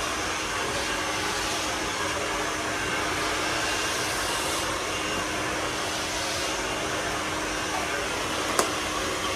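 Handheld hair dryer running steadily at full blow, a rush of air with a faint steady hum underneath. There is one brief click near the end.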